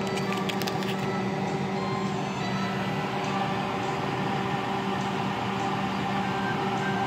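A steady, even mechanical hum, like a kitchen appliance or fan running. A few light clicks come in the first second.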